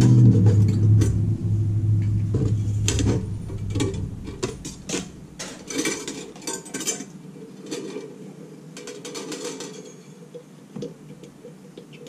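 Nichrome wire and the aluminium ice-cube cutter grid rattling and clicking as the wire is pulled and laced through the frame by hand, in irregular clusters of light metallic clicks. Under the start, a loud low hum fades away over the first three seconds or so.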